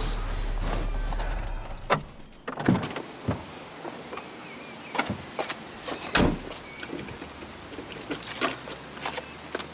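Car engine running with a steady low drone that stops about a second and a half in. Then come the clunks of a car door being opened and shut, with keys jangling and a bag handled in between.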